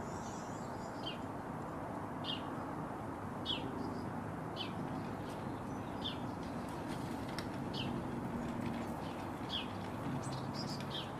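A bird repeating one short, high chirp that falls in pitch, about once a second, over a steady outdoor background hiss.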